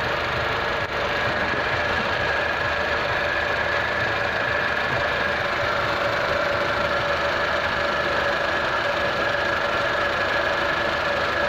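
Honda Civic FD's 1.8-litre four-cylinder engine idling steadily, heard close up in the engine bay, with a steady whine over it. The engine is overheating, and its radiator and condenser fans are not running.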